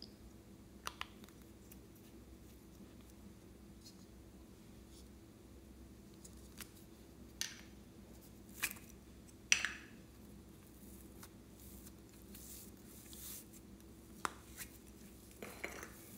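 Scattered light clicks and taps from small plastic pots and a polish bottle being handled over a glass bowl of slime, the sharpest few in the middle, over a faint steady hum.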